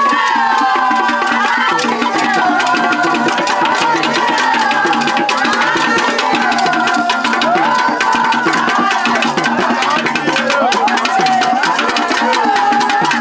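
Music with busy hand-drum percussion and a melody line that slides up and down in pitch.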